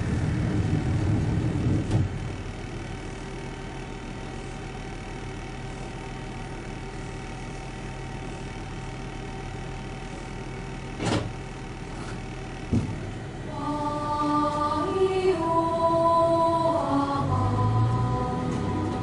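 Diesel railcar engine idling steadily at a station stop, with a louder rumble at the start and two sharp clicks in the middle. In the last few seconds a melody of held notes plays, and near the end the engine note grows louder as the train pulls away.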